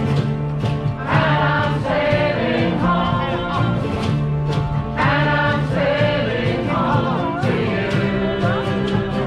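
A shanty band playing live: several voices singing together over strummed acoustic guitars and other acoustic instruments, with a steady rhythm.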